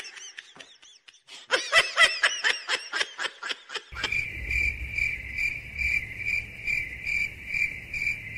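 High-pitched giggling in quick runs of short rising-and-falling notes, loudest about two seconds in. About four seconds in, a steady high cricket-like chirping takes over, pulsing two or three times a second over a low hum.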